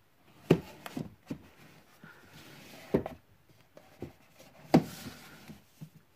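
Video box sets knocking and sliding against a wooden shelf and each other as one is put back and another pulled out. Several sharp knocks, the loudest about half a second in, near three seconds and near five seconds, with rubbing and scraping between.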